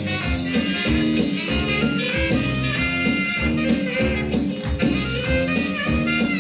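Recorded dance music with a steady beat, horn-like melody lines over a bass line.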